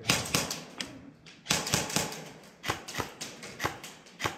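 Footsteps on a hard floor with equipment clicking and knocking: a quick cluster of sharp clicks at the start, then knocks about twice a second.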